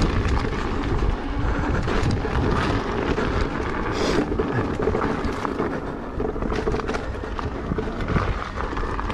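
Wind buffeting the action camera's microphone over the rumble of an electric unicycle rolling along a rough dirt trail, with scattered small knocks and rattles.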